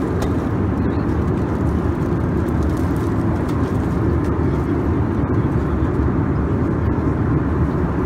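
Steady roar of an Airbus A321's engines and airflow heard inside the passenger cabin in flight, deep and even.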